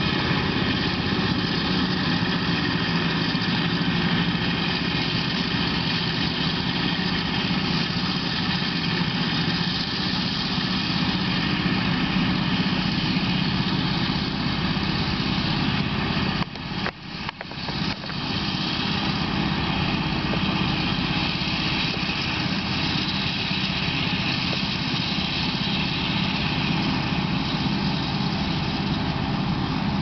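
Claas Jaguar 890 forage harvester chopping maize, with the tractor and trailer running alongside: a steady, even engine and machinery drone that dips out briefly a few times a little past halfway.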